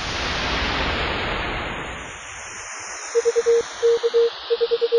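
A swelling whoosh of noise that fades over about two seconds, then, from about three seconds in, a single-pitch Morse code tone keying short and long beeps.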